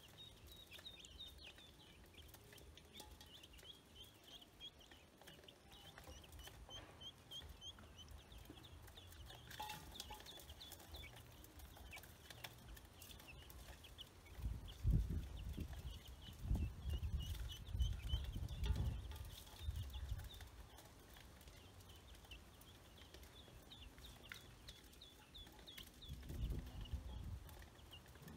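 Baby chicks and ducklings peeping, many short high cheeps in quick succession throughout. Loud low rumbles come in a stretch about halfway through and again near the end.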